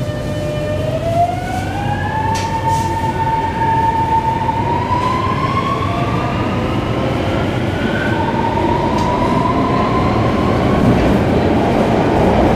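North East Line MRT train accelerating away from a station, heard from inside the carriage. The traction motors whine in several tones that climb in pitch, level off and climb again, over a growing rumble of wheels on rail.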